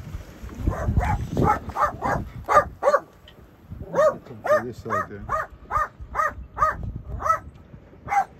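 A small dog yapping in quick high yips, about three a second, in two runs with a short pause about three seconds in.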